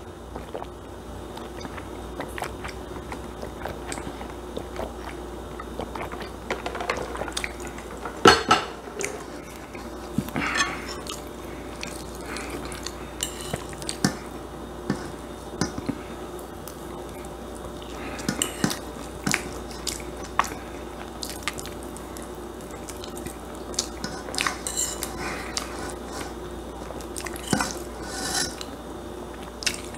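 Utensil clinking and scraping on a ceramic plate, with chewing between the strokes and a sharper clatter about eight seconds in.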